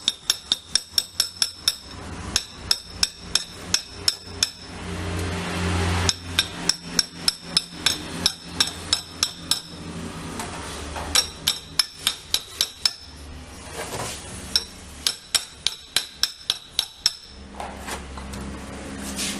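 Hammer tapping on metal in quick runs of several ringing strikes a second, with short pauses between the runs and a brief rushing noise about five seconds in. A car air-conditioning compressor's clutch pulley is being knocked off its shaft so that its faulty bearing can be replaced.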